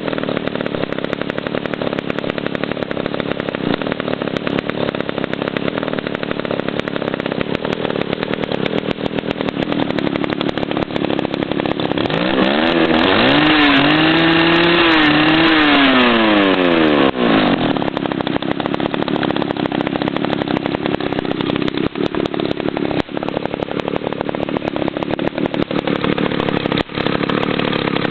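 Alpina 0-70 70cc two-stroke chainsaw engine running at a steady, rough idle. About twelve seconds in it is revved up, held for a few seconds, then let drop back to idle.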